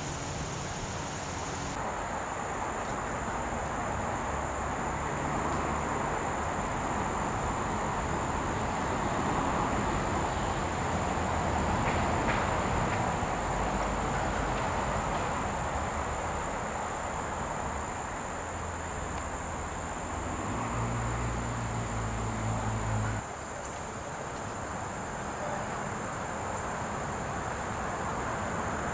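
Outdoor ambience: a steady rushing noise that swells toward the middle and eases off again, with a constant thin high whine. A low rumble stops abruptly about 23 seconds in.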